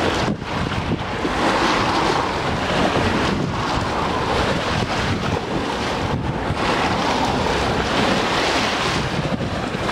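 Wind buffeting the microphone: a loud, steady rush that eases briefly a few times.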